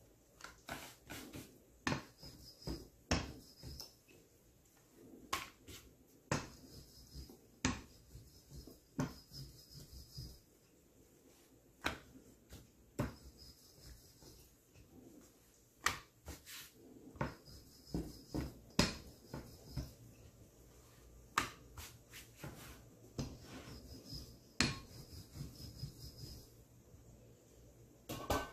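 Rolling pin working dough flat on a wooden chopping board: irregular wooden knocks and clicks from the pin and board, about one a second and sometimes in quick runs, with faint rubbing between.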